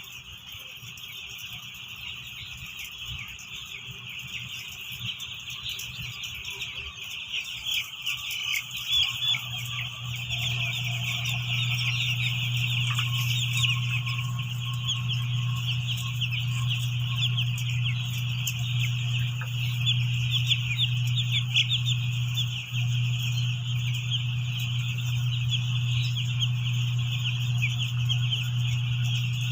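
A dense chorus of four-day-old broiler chicks peeping continuously, many small chirps overlapping. A steady low hum comes in about ten seconds in.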